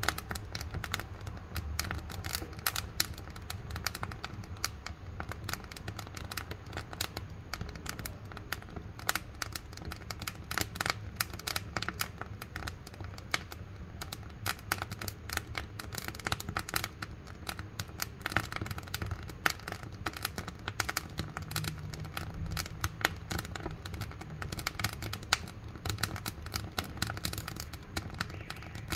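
Wood fire crackling in a wood-burning cookstove: dense, irregular snaps and pops over a low steady rumble.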